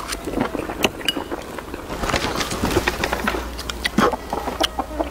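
Eating sounds: chopsticks clicking against porcelain bowls, with irregular small clinks and chewing throughout.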